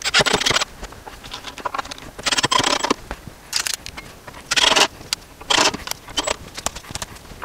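Cordless drill driving long wood screws into the plywood top of a cajon in a series of short bursts. The clutch is set low so that the drill stops short before the screw is seated.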